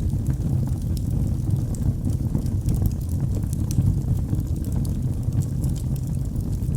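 Wood fire burning in a fireplace: a steady low rumble of the flames with frequent small, irregular crackles and pops.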